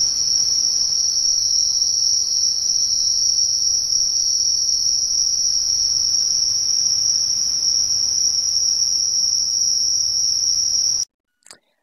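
A cricket trilling: a loud, continuous, high-pitched trill with no breaks, which cuts off suddenly near the end.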